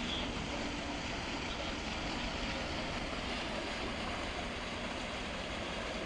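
Steady rushing outdoor background noise, wind and harbour water, with no distinct events.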